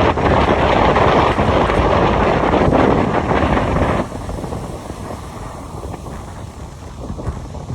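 Loud wind noise buffeting the microphone, cutting abruptly about four seconds in to quieter wind noise.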